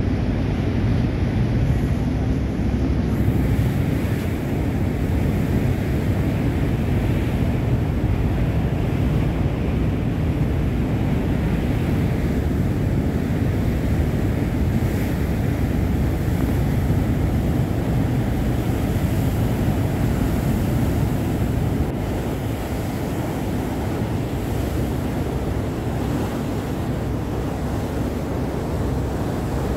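Wind buffeting the microphone over the rush of sea water along a moving ship's hull, a steady noise that turns a little quieter for the last third.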